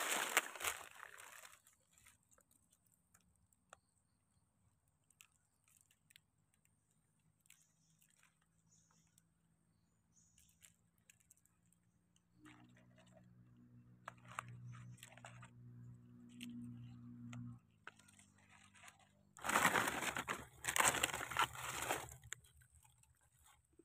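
Dry leaf litter crunching and rustling underfoot and under hands: a loud crunch right at the start, then two loud bursts of crunching a few seconds before the end, with small crackles between. A faint low hum is heard for about five seconds in the middle.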